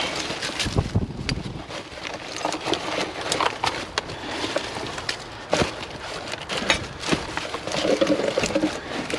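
Hands rummaging through a box of scrap wire and metal, with irregular rustles, clicks and light knocks of pieces being moved and pulled out.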